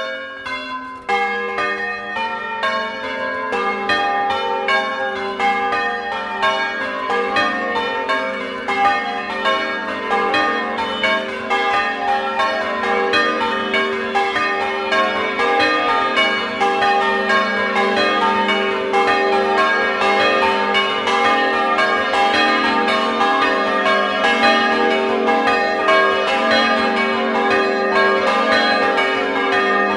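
A set of bronze church bells cast by Francesco De Poli in 1994, tuned in a major sixth from A♭3 to F4, rung full circle by hand in the Bolognese style. The strikes come fast and continuous, overlapping into a rolling, interwoven peal (a doppio).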